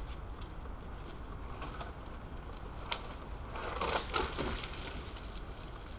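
Wetterlings forest axe chopping once into a thin tree, a single sharp strike about halfway through, then about a second of crackling and rustling in dry leaves and twigs.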